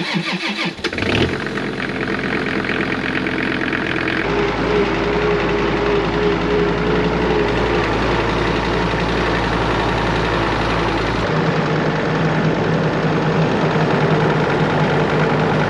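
Tractor engine running steadily. Its sound changes abruptly about four seconds in and again about eleven seconds in.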